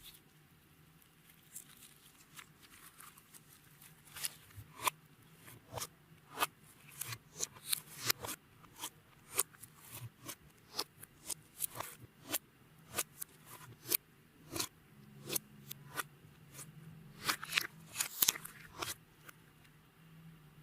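Clear slime with beads mixed in being squeezed and worked by hand, giving crisp irregular pops and clicks. They are sparse at first, come about one or two a second from a few seconds in, and crowd together near the end.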